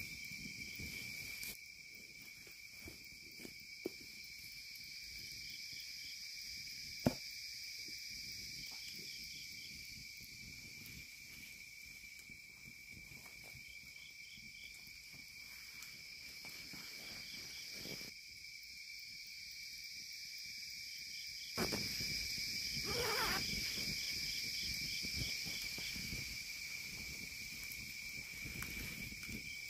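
Night crickets and other insects trilling steadily and high-pitched, with a wood campfire burning and a couple of sharp single pops from it in the first third.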